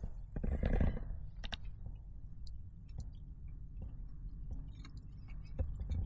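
Small clicks and ticks of a spoon against a mini rice cooker's pot, with soft chewing, as freshly cooked rice is tasted; a low steady hum runs underneath.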